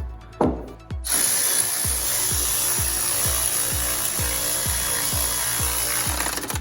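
A power tool runs steadily for about five seconds, starting about a second in and stopping near the end, over background electronic music with a steady kick-drum beat.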